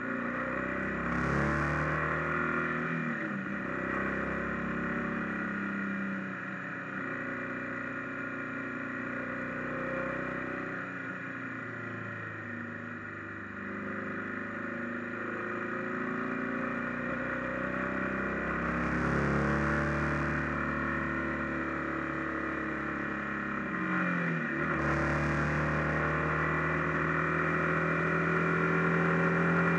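Motorcycle engine running under way, its note rising and falling with the throttle and dropping sharply once near the end before climbing again, as at a gear change, over a steady rush of wind and road noise.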